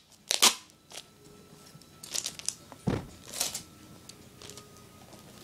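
Paper being handled, crinkling and rustling in short scattered bursts with a few sharp clicks, and a dull thump about three seconds in.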